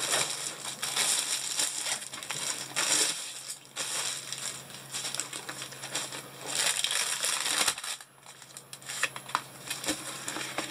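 Crinkling and rustling of the plastic-wrapped, rolled diamond painting canvas as it is handled and unrolled, in repeated bursts. It quiets about eight seconds in, leaving a few light clicks.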